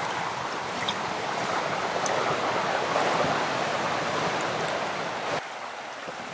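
River water rushing steadily over a stony bed. It drops noticeably quieter about five and a half seconds in.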